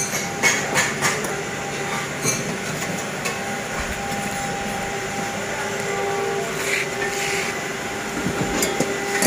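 Steel motorcycle center stands clanking lightly against each other and the floor as they are handled, with a few sharp metal knocks in the first two seconds, over a steady machine hum.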